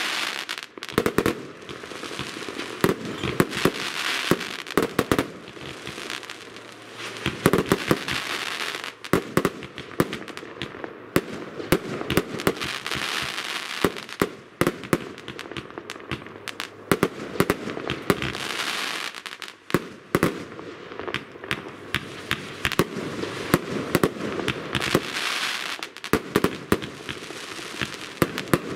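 Geisha Crash Box compound firework battery firing shot after shot: sharp bangs in quick runs, with hissing bursts between them, coming in waves every few seconds.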